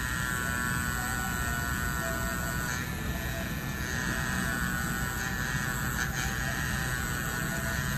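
Mast Tour Pro rotary pen tattoo machine running on battery power, a steady motor buzz as the cartridge needle works ink into skin.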